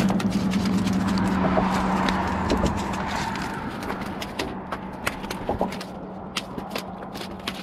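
A small landed shark flopping on a concrete pier, its body slapping and tapping the concrete in quick irregular strokes, over a steady low hum.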